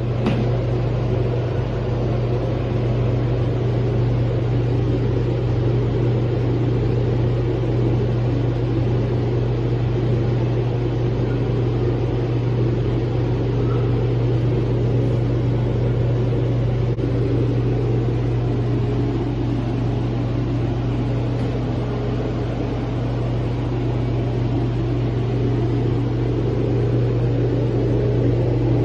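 A loud, steady low drone of an engine or motor running, starting abruptly and holding an even pitch.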